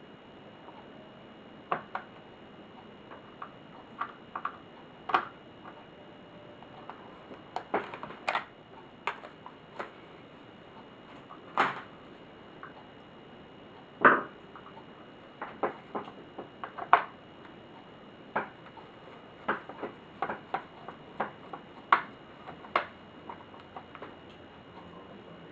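Irregular clicks, taps and light knocks of plastic and small metal laptop parts being handled as an HP Pavilion dv6000-series laptop is taken apart. There are about two dozen, with the sharpest ones near the middle.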